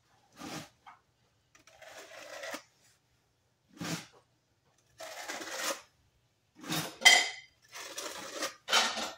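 Steel notched trowel scraping and combing adhesive across the back of a marble stone panel, in a series of short strokes, with one sharp metallic clink about seven seconds in.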